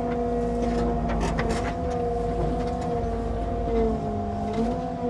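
Tracked excavator's diesel engine running steadily as the machine works to climb out of a muddy creek bed, its pitch sagging under load near the end and then recovering. A few sharp clanks about a second in.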